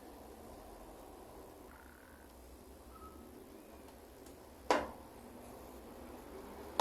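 Low background hiss broken by one sharp click or knock about two-thirds of the way through, typical of a small part or tool being set down while a seized fan is taken apart. Two faint short chirps sound earlier.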